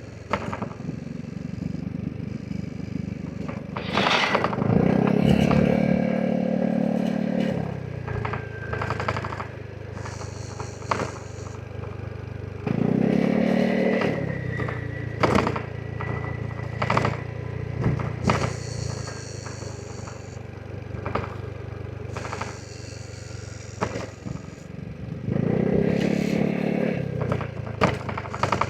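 Vespa GTS 300 scooter's single-cylinder engine pulling hard three times, rising in pitch each time, then dropping back to a lower steady drone between. Sharp ticks and crackles are scattered through the run.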